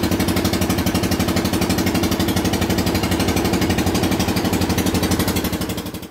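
Truck diesel engine running steadily at close range, with a fast, even pulsing; it fades out near the end.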